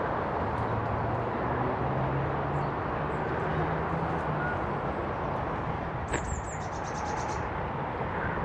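Steady outdoor rushing noise with a faint low hum that rises slightly in pitch in the first half, and a songbird's quick run of high, repeated chirps about six seconds in.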